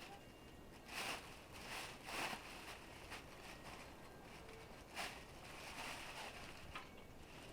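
A few short rustling scrapes, spaced irregularly about a second or more apart, over faint outdoor background noise.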